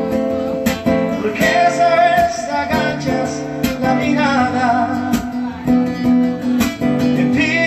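Acoustic guitar strummed live with a singer's voice over it.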